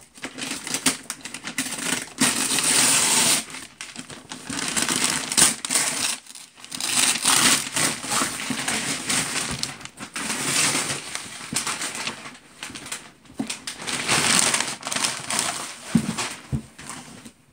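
Brown kraft paper wrapping on a cardboard parcel crumpling and crinkling as it is handled and pulled off by hand, in a run of rustling bursts with a couple of short pauses.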